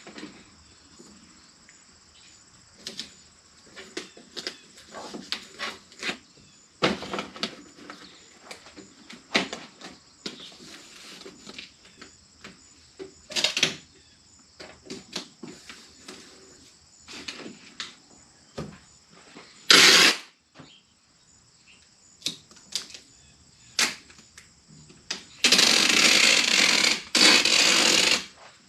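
Scattered clicks and knocks of hand work on a truck door's window regulator, with one sharper knock about two-thirds of the way in. Near the end, a loud steady mechanical running sound starts, stops briefly and starts again.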